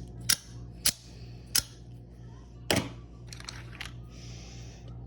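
Four sharp clicks spread over about three seconds, then a brief rustle: knives being handled.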